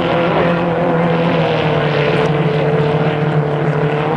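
Engines of small vintage racing hydroplanes running flat out on a race course, a steady loud drone with one engine note falling slightly in pitch over the first two seconds as a boat goes by.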